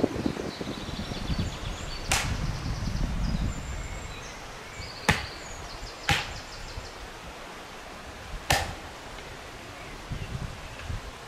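Firewood being chopped by hand on a log: four sharp wooden knocks, irregularly spaced.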